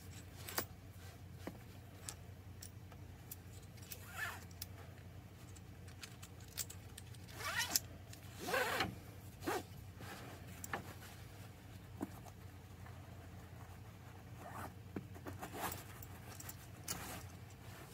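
Nylon stuff sack rustling and black strap webbing sliding through a metal cinch buckle as the buckle is drawn out of the sack, in scattered short swishes with small clicks of the buckle. The longest swishes come about eight to nine seconds in.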